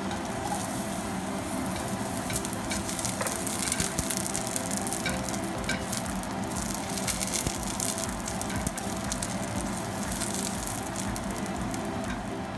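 Sliced garlic frying in hot oil in a stainless steel skillet: a steady sizzle full of small crackles and pops, with a silicone spatula stirring the slices.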